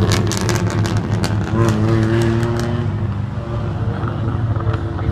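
Race car engines running on a short oval track: a steady, loud drone, with one engine's note standing out for about a second near the middle.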